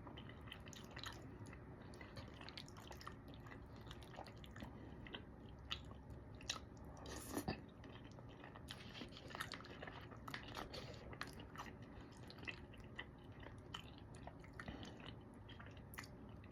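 Close-miked chewing of mac and cheese and chicken: a steady run of small wet mouth clicks and smacks, with a louder bite about seven and a half seconds in.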